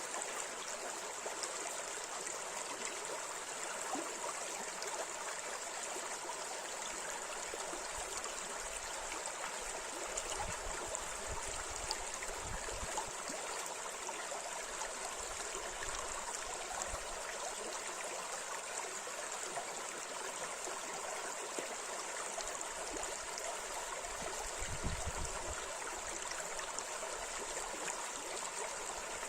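River water running steadily over shallow riffles, an even rushing and babbling.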